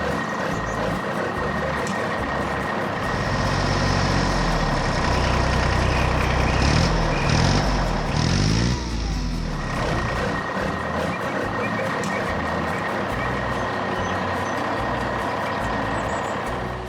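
Heavy construction vehicle engine running steadily. It grows louder in the middle, rising and falling in pitch as if revving, then settles back.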